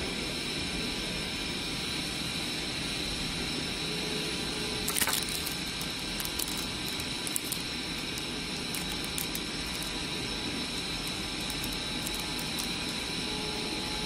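Steady background hiss with light handling clicks: one sharper click about five seconds in, then scattered small clicks as buttons on a small lamp remote control are pressed through its plastic bag.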